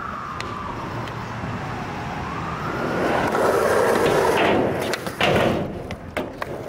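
Skateboard wheels rolling, growing louder as the skater rides toward the camera, then sharp clacks of the board in the last second or so. A siren wails under it, falling and then rising in pitch.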